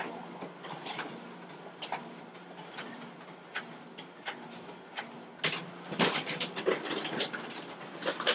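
FPi4700 folder inserter running, feeding and collating sheets: a steady motor hum with sharp mechanical clicks about once or twice a second, busiest clatter about six seconds in.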